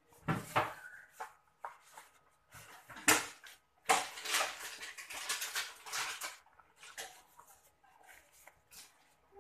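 Large wrapping leaves rustling and crinkling in irregular bursts as they are folded by hand around a lump of rice, with one sharp, louder rustle about three seconds in.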